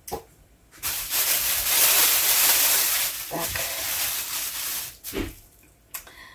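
Thin plastic food bag rustling and crinkling loudly for about four seconds as it is opened and handled. It ends with a couple of short knocks.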